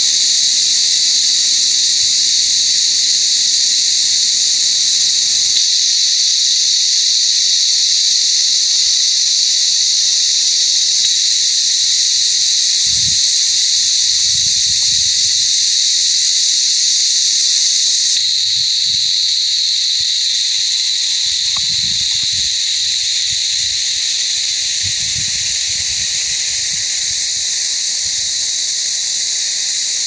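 A chorus of cicadas singing in pine trees: a loud, continuous high-pitched buzz that never breaks, changing slightly in tone and dropping a little in level about eighteen seconds in.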